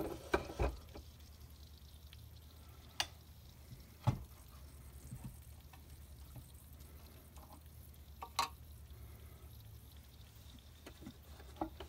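Scattered light clicks and knocks from the small metal parts of a live steam locomotive being handled on a workbench, a few seconds apart, over a steady low hum.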